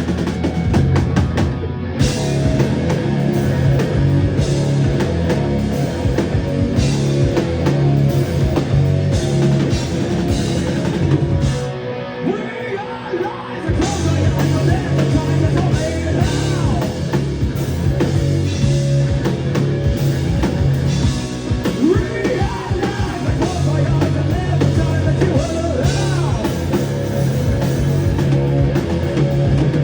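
Live rock band playing with a drum kit and a singer. About twelve seconds in, the drums and low end drop out for about two seconds before the full band comes back in.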